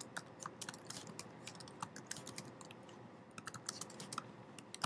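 Computer keyboard being typed on: quick, irregular, faint key clicks, thinning out briefly about halfway through.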